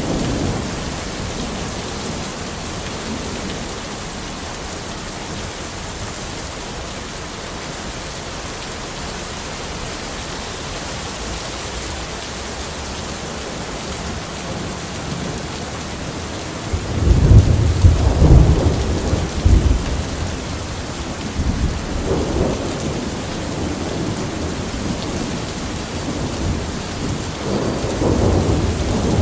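Steady rain falling in a forest, with rolling thunder rumbling in suddenly about two-thirds of the way through and again near the end.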